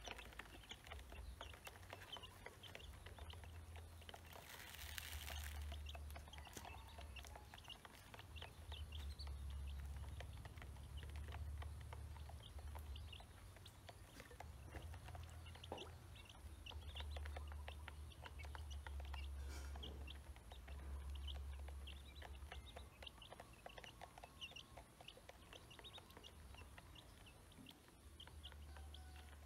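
Ducklings cheeping in many short high peeps while they peck at grain in a plastic basin, over a low rumble. A brief rush of noise comes about five seconds in.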